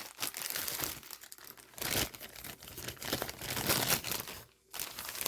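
Paper rustling and crinkling as manuals and papers are handled and leafed through, in irregular bursts with a brief pause near the end.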